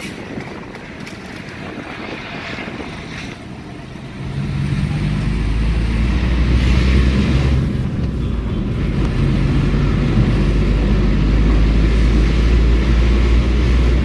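A car driving along a road: engine and road noise, which turn louder and deeper about four seconds in and stay that way.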